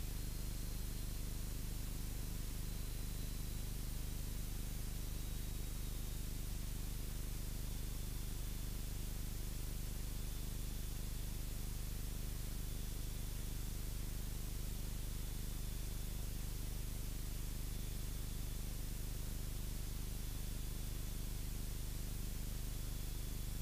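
Steady low drone of a Cessna 172's piston engine and propeller in level flight at constant power, under a constant hiss.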